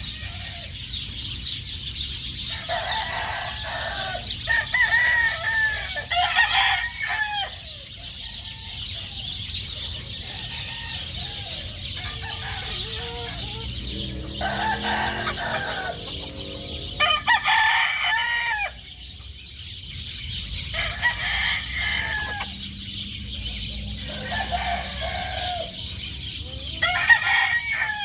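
Chickens clucking, with a rooster crowing several times; the longest and loudest crow comes about two-thirds of the way through. A steady high-pitched hiss runs underneath.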